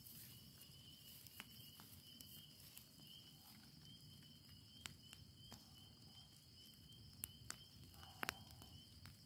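Faint crackling of a burning pile of cardboard boxes and paper, with a few sharp pops scattered through, over a steady high chirping of crickets.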